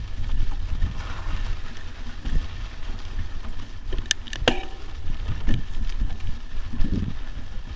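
Wind buffeting the camera microphone and the rattle of a mountain bike riding over a rocky dirt trail, with a couple of sharp clicks or knocks about four seconds in.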